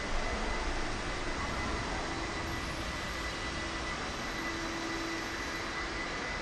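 Steady, even hiss of room ambience in a large stone prayer hall, with a faint steady high whine and a low hum that comes and goes.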